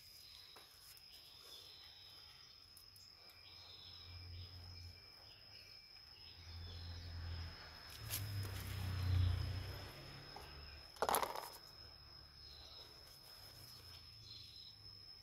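An insect's steady high-pitched trill runs throughout, over soft handling of plastic plant pots and soil, with a short sharp rustling knock about eleven seconds in, the loudest sound.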